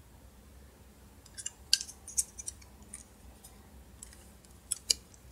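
Small clicks and light scrapes of a smartphone's plastic housing and parts being handled and pried with the fingers: a scatter of clicks in the middle and two sharper clicks near the end.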